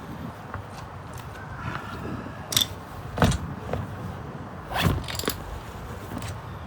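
A few sharp metallic knocks and clinks from tools worked on a car wheel's lug nut. The two loudest come a little after the middle and near the end.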